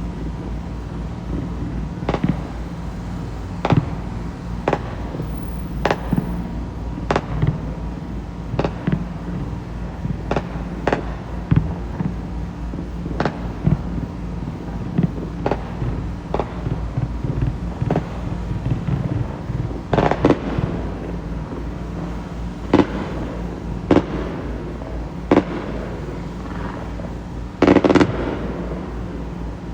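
Fireworks going off: a string of sharp bangs, about one a second, over a steady low rumble. The bangs come thicker in two clusters, about two-thirds of the way through and again near the end.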